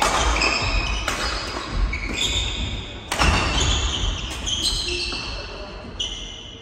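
Badminton doubles rally on a wooden hall court: sharp racket strikes on the shuttlecock ring out with the hall's echo, mixed with short high squeaks of shoes on the floor. The sound dies away near the end as play stops.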